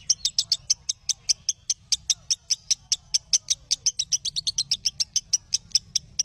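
A bird calling a fast, even series of short high chirps, about seven a second, without a break.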